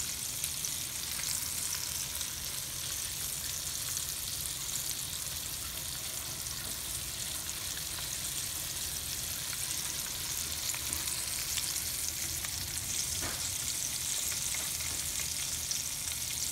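Battered fish pieces frying in a shallow pan of hot oil: a steady, high sizzling hiss with small scattered crackles.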